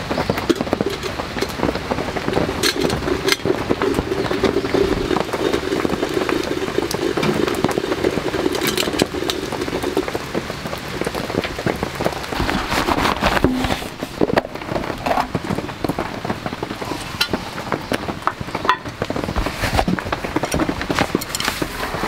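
Heavy rain falling steadily, with the crackle and occasional sharp pops of a small wood fire burning in a pocket stove.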